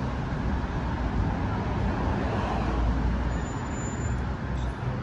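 Steady low rumbling background noise with no distinct events. A short thin high tone sounds a little over three seconds in.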